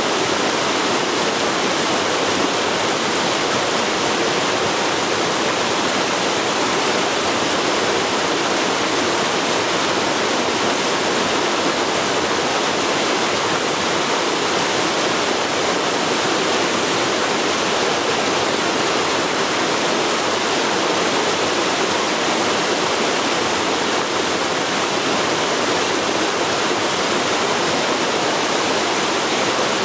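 Forest river flowing: a steady, full rush of moving water with no breaks.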